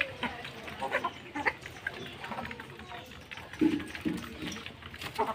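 Desi chickens and roosters pecking rice off a concrete floor, beaks tapping in many quick, irregular clicks, with a few short low clucks a little past the middle.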